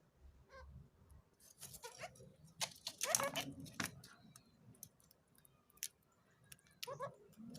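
Kakariki parakeet giving short scratchy chattering sounds, clustered in the middle with a few brief rising squeaks among them, then a few fainter ones near the end.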